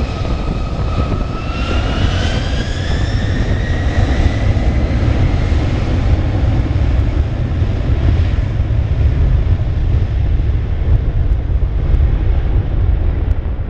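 Twin turbofan engines of a Boeing KC-46 tanker spooling up: a whine of several pitches rises over the first few seconds, then sinks into a heavy, steady low roar of jet thrust.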